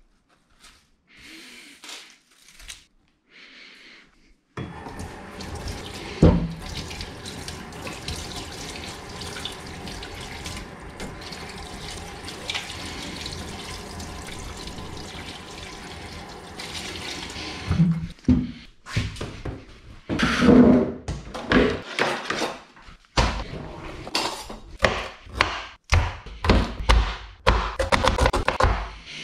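Kitchen tap running into a stainless-steel sink as food is rinsed under it, starting about four seconds in and stopping a few seconds later. It is followed by a knife chopping on a plastic cutting board in quick, uneven strokes.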